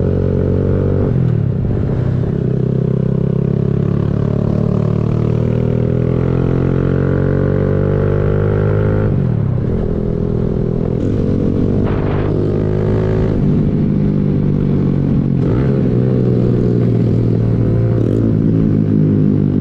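Kawasaki Z125 Pro's 125cc single-cylinder engine running under way, its pitch climbing steadily, then dropping sharply and building again three times, about a second in, around nine seconds and around fifteen seconds.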